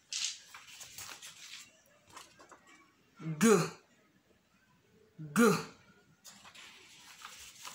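A voice saying two short syllables about two seconds apart, pronouncing letters one at a time, with soft hissing sounds before and after.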